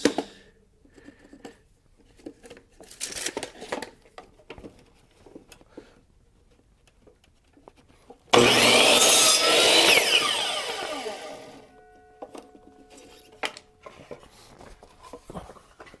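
Electric compound miter saw switched on about halfway through, crosscutting a wooden board, then winding down with a falling whine. Before it, only light handling sounds of the board.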